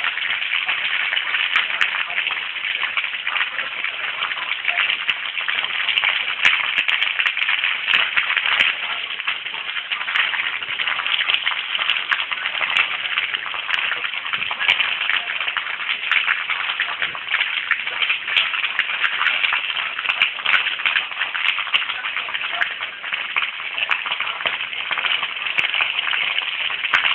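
An open fire burning: a dense, steady crackle thick with sharp pops.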